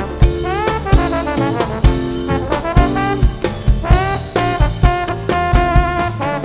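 Trombone playing a jazz solo line with pitch glides up into notes, over a jazz band's drums keeping a steady beat.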